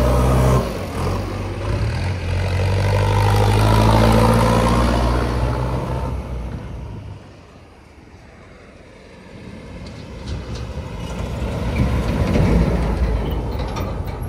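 Heavy diesel engine running loud with a steady pitch, then dying away about seven seconds in, and building up again near the end.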